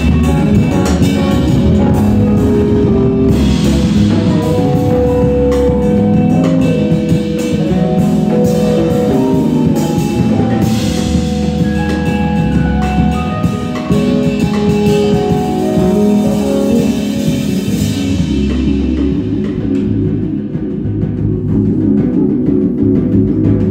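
Live instrumental band of drum kit, electric bass and keyboard synthesizers playing: a busy drum beat under a stepping keyboard melody. The drums and cymbals thin out near the end, leaving bass and synth.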